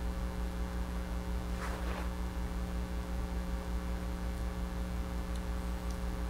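Steady electrical mains hum, a low buzz with several fixed overtones, over room tone. A faint brief sound comes about two seconds in.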